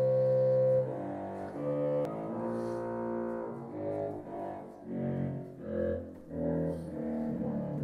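Sampled pipe organ (Hauptwerk software) played on the pedalboard alone: a line of single low organ notes. The first note is held for about a second, then the notes change about twice a second and become shorter and more detached in the second half.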